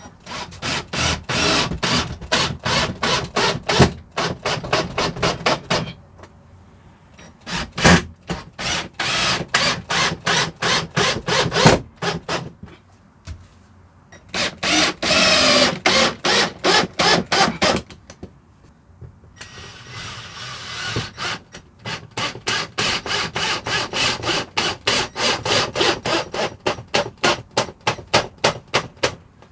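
Hand-tool work on timber: bursts of several seconds of rapid, regular strokes, about four a second, separated by short pauses.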